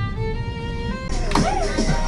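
Violin music playing long, held notes. About a second in it gives way to a louder jumble of voices and noise.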